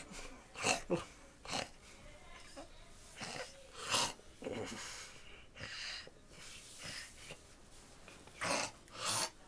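Snoring: a series of noisy snores at irregular intervals, some loud and some faint, with the loudest about four seconds in and two more near the end.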